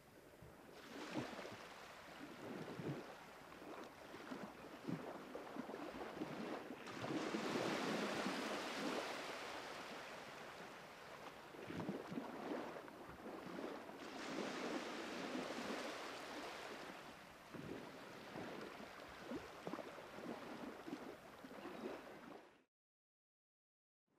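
Sea waves washing in with wind noise on the microphone, rising and falling in slow swells, cutting off abruptly near the end.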